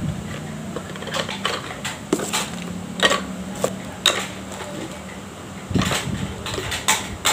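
Light clicks and knocks of the camera box and its small plastic accessories being handled and moved, scattered irregularly and coming closer together near the end, over a steady low hum.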